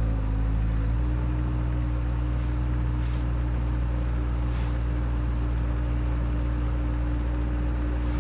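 Bobcat skid-steer loader's engine running steadily while it loads a big round hay bale, its pitch stepping up slightly about a second in.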